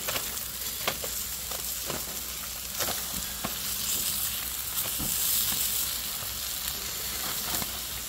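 Steaks sizzling on aluminium foil over a gas grill, with a steady high hiss. Sharp clicks come now and then as metal tongs and a fork turn the meat.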